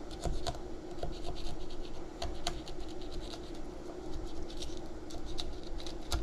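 Fillet knife cutting along the back of a gafftopsail catfish: a run of small, irregular scratching and clicking strokes as the blade traces along the backbone and the bony dorsal fin.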